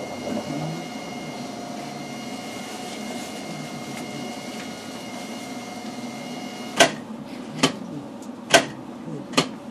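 Steady electrical hum with a high whine inside a standing streetcar's cab. About seven seconds in the whine cuts out, and four sharp clicks follow about a second apart as the driver works the control handle.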